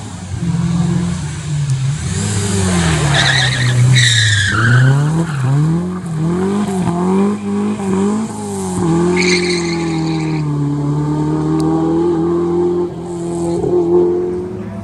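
Rally car engine revving hard, its pitch climbing and then swinging quickly up and down as the driver lifts and changes gear, then holding steady. Tyres squeal briefly twice: a few seconds in and again about halfway.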